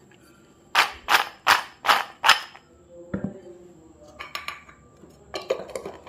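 Crisp fried choli rattling in a bowl as it is shaken to coat them in chilli powder: five sharp shakes about 0.4 s apart. After them the bowl is set down with a low knock, followed by a few fainter clatters.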